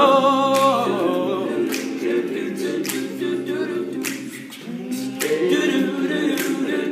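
All-male a cappella group singing a wordless chordal groove between verses: sustained stacked backing-vocal chords over a steady beat of sharp beatboxed percussion hits. The voices thin out about four seconds in and swell back about a second later.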